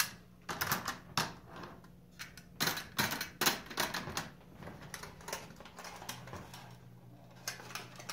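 Irregular light metallic clicks and clatter of Marx tinplate toy train cars being handled and set down onto metal three-rail track, thickest in the first few seconds and sparser toward the end.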